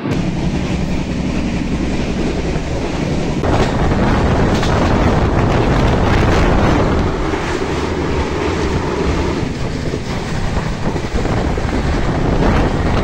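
Indian Railways express passenger train running, with wheel-and-rail noise heard from the open door of a coach and wind buffeting the microphone. It gets louder from about three and a half seconds in.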